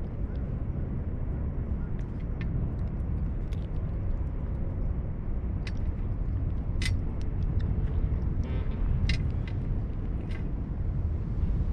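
A cat eating dry treats from a stainless steel tray: scattered crunches and sharp clicks of food and teeth against the metal, including a quick rattle a little past the middle, over a steady low rumble.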